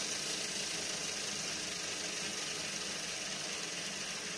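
3D-printed three-phase electric motor spinning a propeller at speed: a steady whir with a hiss above it, easing off slightly in level.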